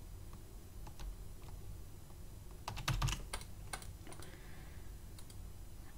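Computer keyboard typing: scattered single keystrokes with a short quick run of keys about three seconds in.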